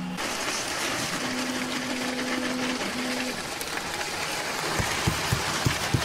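Concrete pump running while concrete is pumped through the hose into the ICF wall forms: a steady machine noise. About five seconds in, a quick run of knocks starts, about three or four a second.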